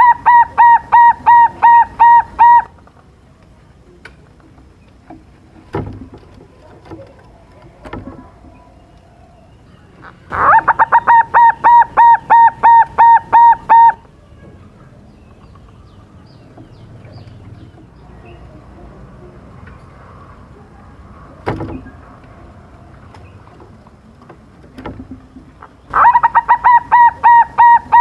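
Young silver-variety zebra dove (perkutut) singing: three phrases of rapid, even cooing notes, about four a second, each phrase about three seconds long. One phrase is already under way at the start, one begins about ten seconds in, and one near the end. A few faint knocks fall between the phrases.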